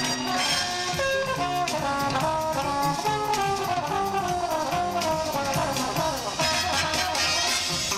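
Jazz music with a brass section playing a moving melody over a steady rhythm accompaniment.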